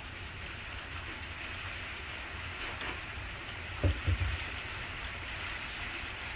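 Steady sizzling hiss from the warm Blackstone griddle top, with a low rumble underneath and a few dull knocks about four seconds in.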